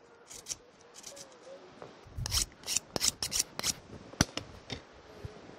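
A knife slicing through a peeled raw onion held in the hand: a run of short, crisp cuts, thickest between about two and four seconds in, with a dull thump just after two seconds.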